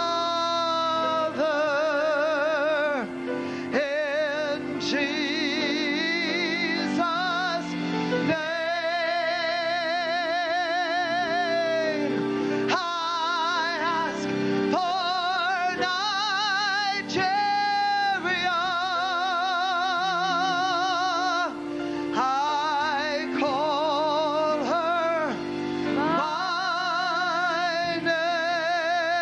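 A worship song: a single voice sings long phrases with wide vibrato over held keyboard chords that change step by step.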